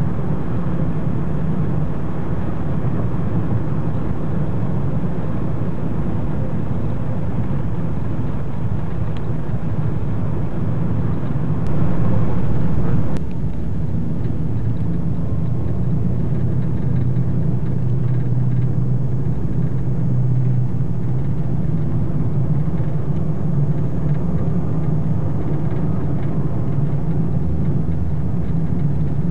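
Car engine and road noise heard from inside the cabin, a steady low drone. About twelve seconds in there is a brief louder stretch ending in a click, and the sound is duller after it.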